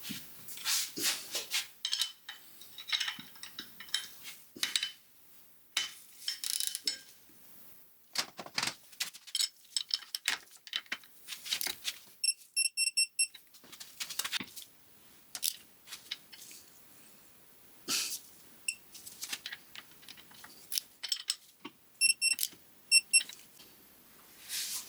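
Hand ratchet clicking in short runs as the link pin pinch-bolt nuts on a VW Beetle front beam are tightened to 36 ft-lb, with two runs of quick high electronic beeps, each about a second long, about halfway through and near the end: a digital torque wrench signalling that the set torque is reached.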